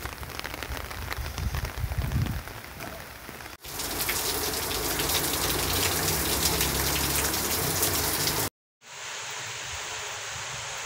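Steady rain falling, drops pattering on a surface. A little over three seconds in it changes abruptly to heavier, louder rain, then cuts out for a moment near the end and comes back as a softer steady hiss.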